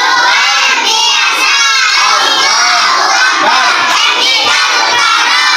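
A class of young schoolchildren shouting a reply together, many voices at once, in answer to the teacher asking how they are.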